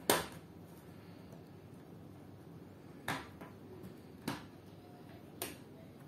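Plastic retaining clips of a Lenovo IdeaPad 3i's bottom cover snapping loose as a hard card is slid along the seam to pry the cover off. One sharp click at the start, the loudest, then three quieter clicks about a second apart in the second half.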